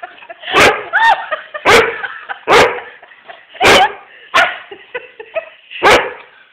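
Shetland sheepdog giving sharp play barks, about seven of them at an uneven pace. One, about a second in, has a yelping rise and fall in pitch.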